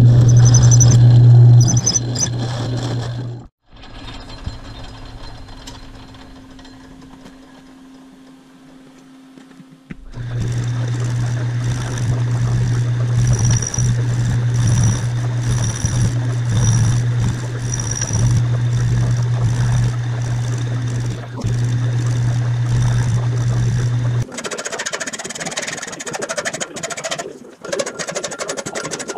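Metal lathe running with a steady low hum while it cuts the aluminum gas cap, stopping for a quieter stretch of a few seconds between two runs. Near the end, a hand file rasps in uneven strokes across the aluminum cap clamped in a bench vise.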